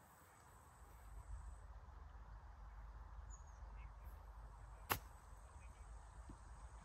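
One sharp, very short strike about five seconds in: a golf club chipping a ball out of thick, deep grass, over a faint low rumble.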